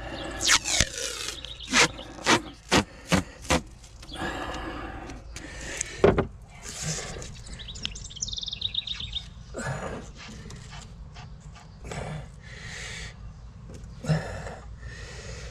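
Masking tape being pulled off the roll and torn, a quick run of short rips in the first few seconds and another loud one about six seconds in, then quieter rustling as the tape is laid and pressed down.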